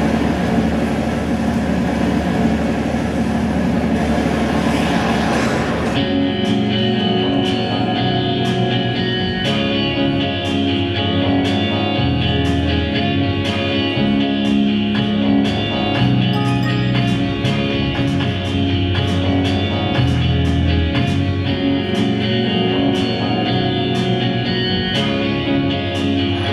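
Background music: a dense wash of sound, then about six seconds in a steady beat comes in under sustained melodic tones.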